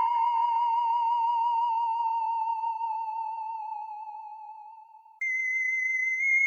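Electronic sci-fi 'alien' sound effect: a theremin-like warbling tone with a fast vibrato fades away over about five seconds and breaks off, then a higher, steady tone starts abruptly.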